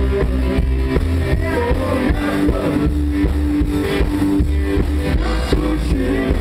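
Live country rock band playing with a steady beat: upright double bass, electric guitar and drum kit. A long held guitar note sounds through the middle.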